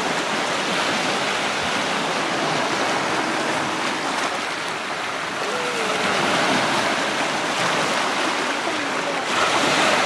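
Small sea waves washing and breaking over a rocky shoreline, a steady wash of surf.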